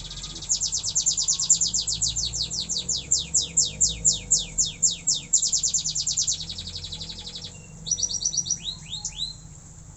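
Domestic canary singing as it learns its song: long rapid trills of repeated downward-sweeping notes, then a quicker short trill and a few slurred notes about eight seconds in.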